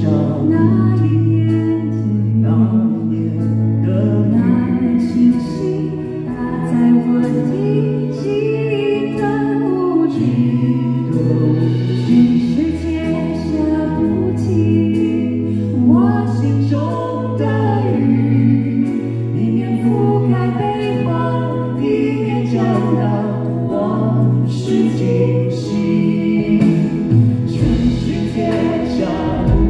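A man and a woman singing a Mandarin ballad duet live into microphones, over instrumental accompaniment with long held bass notes.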